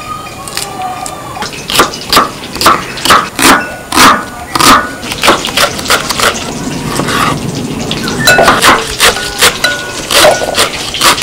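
Knife chopping on a wooden cutting board, sharp knocks about two to three a second beginning about two seconds in, cutting green chilies and then rosella leaves.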